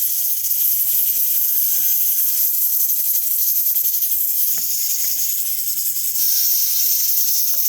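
Steady loud hiss of steam from cooking, with a few faint clicks and knocks from pots and utensils.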